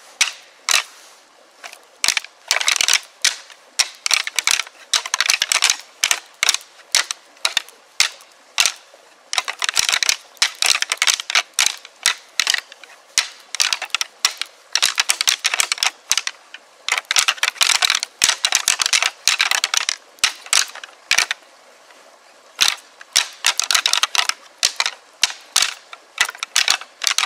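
A pair of rattling antlers clashed and ground together in quick series of sharp clacks, in bouts separated by short pauses. This is a deer hunter's rattling sequence, imitating two bucks sparring to draw in a buck.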